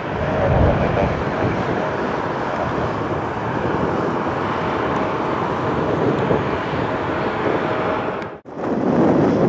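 Tecnam P2006T light twin's two Rotax piston engines droning steadily overhead, with a faint steady hum and wind noise on the microphone. About eight seconds in the sound drops out for a moment, then gusts of wind buffet the microphone.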